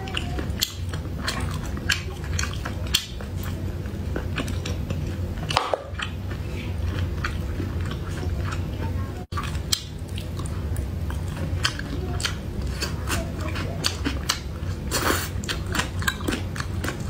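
Close-miked eating sounds: chewing and biting, with many short sharp clicks and crackles as shellfish is pulled apart by hand.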